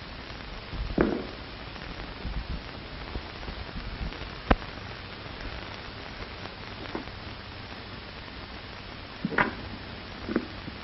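Steady hiss of an old film soundtrack, with a few brief faint sounds: a short sound about a second in, one sharp click a little before halfway, and two more short sounds near the end.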